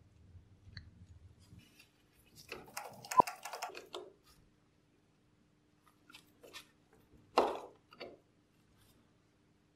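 Screwdriver turning small screws into a polished aluminium syringe body: scraping and metal-on-metal clicks. There is a sharp click about three seconds in and a louder knock of parts about seven seconds in.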